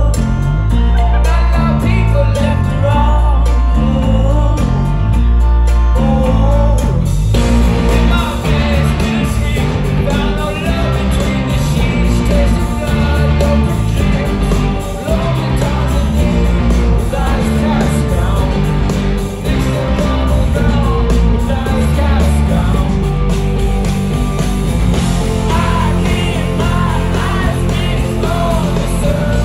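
A rock band playing live, with electric guitars, bass, drums and a lead singer, heard from the audience. About seven seconds in it shifts to a fuller, busier section.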